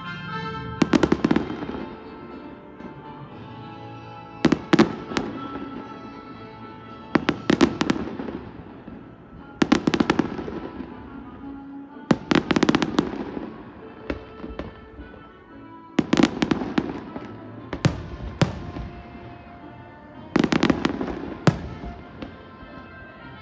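Aerial fireworks bursting, with a cluster of sharp bangs and crackles about every two to three seconds. Music with long held notes plays underneath.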